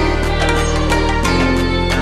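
Background music: sustained bass notes changing about every second and a half, under plucked string notes.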